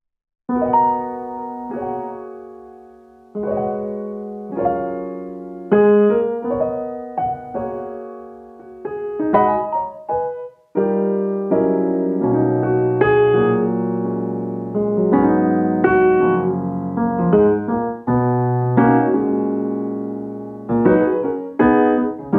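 Background music: solo piano playing slow chords and single notes, each left to ring and fade, with deeper bass notes joining about halfway through.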